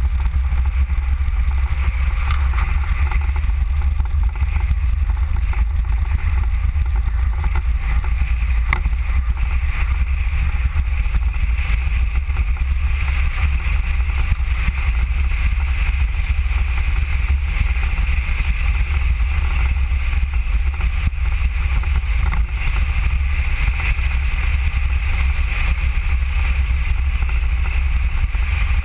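Mango velomobile riding along an asphalt road: a steady rumble of tyres and wind, with no change in level.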